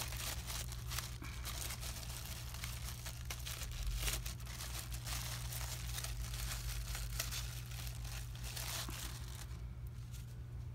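Clear plastic bag crinkling as it is handled and rummaged through, with irregular rustles and small clicks of paper scraps inside; the crinkling eases off near the end.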